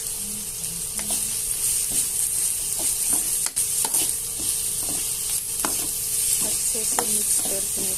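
Chopped bitter gourd sizzling in hot oil in a kadhai, with a spoon stirring and scraping against the pan about twice a second. A faint steady hum runs underneath.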